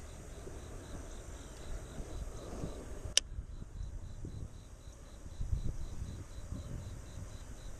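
Cricket-like insect chirping in an even, steady pulse, over a low rumble. A single sharp click comes about three seconds in.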